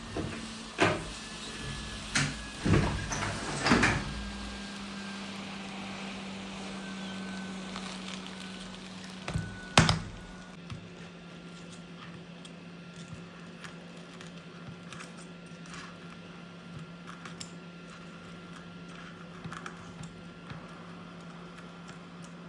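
Phone repair bench sounds: several sharp knocks and clicks of tools and parts being handled in the first four seconds and one louder knock near ten seconds, followed by faint ticks, over a steady low machine hum.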